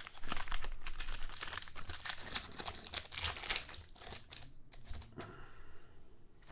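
Plastic wrapper of a trading-card pack crinkling and tearing as it is ripped open. The dense rustle dies down after about four and a half seconds.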